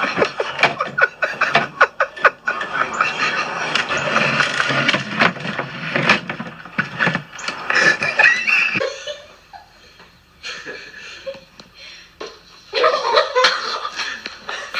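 Laughter mixed with many sharp knocks and clatters for the first nine seconds or so. It drops quieter for a few seconds, then gets busy again near the end.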